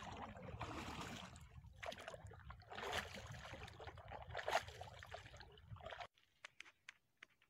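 Wooden paddle strokes in the water beside a dugout canoe: water splashing and sloshing, with a few louder splashes, until the sound stops about six seconds in.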